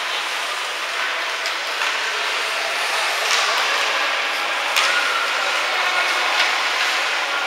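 Ice rink sounds of a youth hockey game in play: a steady scraping hiss of skate blades on the ice, with a few sharp knocks of sticks, puck and boards.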